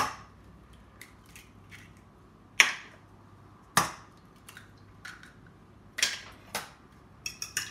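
Eggs being cracked on the rim of a small bowl: a few sharp knocks with pauses between them. Near the end a fork starts beating the eggs in the bowl, a quick run of small clicks.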